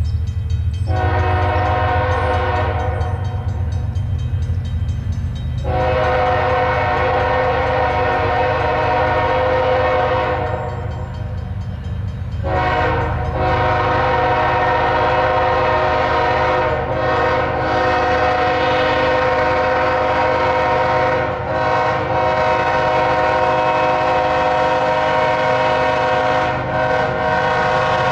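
Nathan K5HLL five-chime air horn on the lead ES44AC diesel locomotive sounding for a crossing in the standard pattern: two long blasts, a short one, then a long one held on. Under it runs the steady low rumble of the approaching train.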